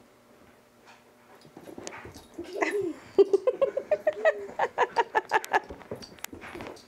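Brittany spaniel puppy whining and yipping in a quick run of short, high cries, starting about two seconds in, excited by the laser dot it is chasing. A few sharp clicks come near the end.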